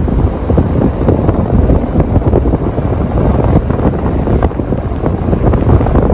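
Wind buffeting the camera microphone, making a loud, steady rumble.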